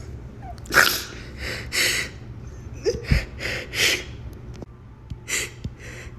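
A teenager crying with joy: a run of short, ragged sniffs and gasping breaths, about one every half second to a second.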